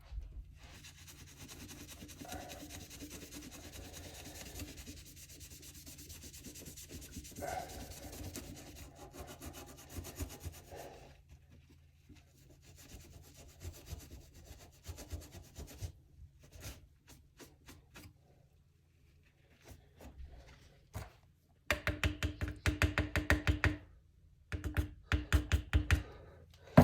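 A sponge loaded with Bar Keepers Friend powder scrubbing a steel knife blade: a steady gritty rubbing at first, then sparse small clicks. Near the end come two loud bursts of fast back-and-forth scrubbing strokes.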